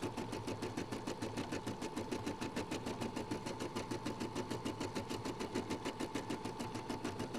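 Brother Innovis 990D embroidery machine stitching out a design: a fast, even rhythm of needle strokes over a steady motor whine.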